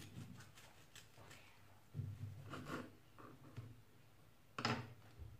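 Serrated knife sawing through a baked cake on a wooden cutting board: faint rasping strokes, with a louder short scrape near the end.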